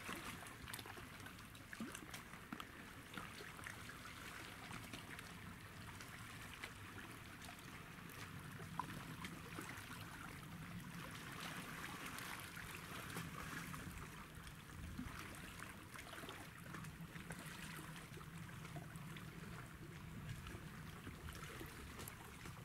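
Small sea waves lapping and trickling among shoreline rocks: a soft, steady wash with many little splashes, over a low rumble.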